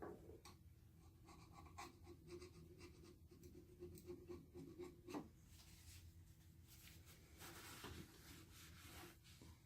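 Faint scratching and rubbing with light scattered clicks, from hand-cleaning the metal parts of an old Singer treadle sewing machine, with a stretch of scrubbing about seven seconds in.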